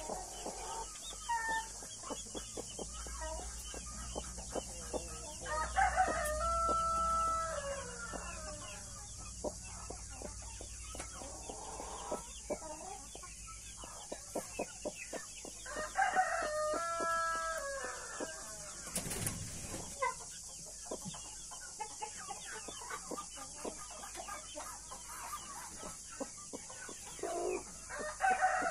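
A rooster crowing three times, about ten seconds apart, each crow ending in a long held note, with soft hen clucking in between.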